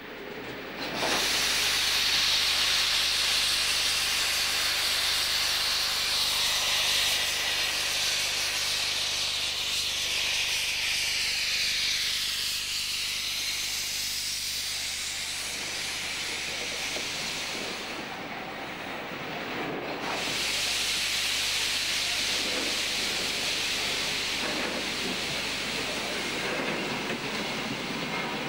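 Steam locomotive venting steam: a loud, steady hiss that sets in about a second in, breaks off briefly about two-thirds of the way through, then starts again.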